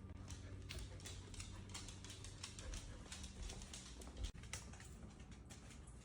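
A dog's claws clicking and pattering irregularly on a hard floor as it walks about, over a faint steady low hum.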